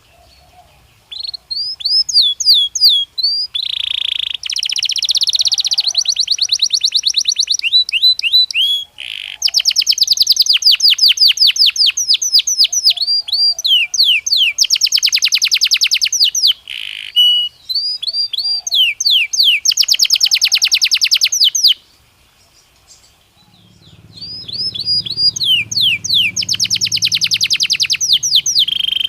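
Belgian canary singing: phrases of repeated falling whistled notes that run into very fast, buzzy trills, broken by a few short pauses. A faint low rumble sits under the song near the end.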